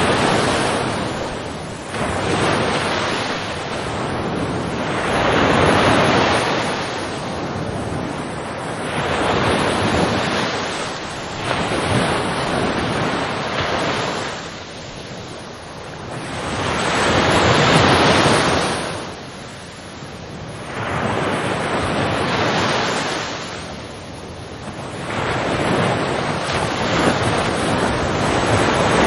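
Ocean waves breaking and washing on a shore. Each wash swells and ebbs over a few seconds, with the loudest surge about two-thirds of the way in.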